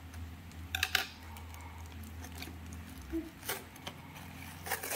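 Cardboard parcel being cut and torn open, its packing tape and flaps giving a few short scrapes and crackles about a second in, again past three seconds, and near the end.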